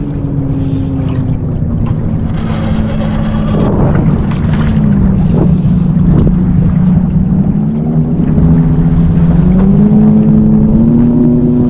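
Boat motor running steadily, its pitch sliding down over the first few seconds and climbing again from about eight seconds in as the speed changes.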